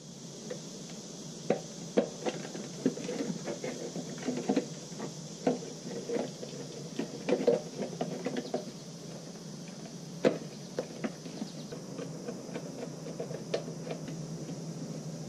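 A motorcycle headlight being pressed into its bucket by hand: irregular light clicks and knocks of the metal and plastic parts, over a steady faint hiss. Near the end a screwdriver is worked at the headlight rim.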